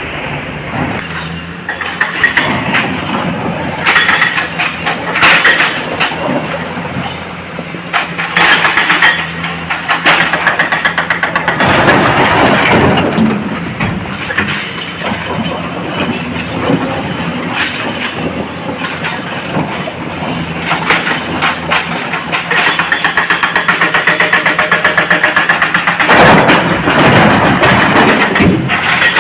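Heavy diesel engine of a loading machine running, with repeated surges of loud, noisy sound over a steady engine hum.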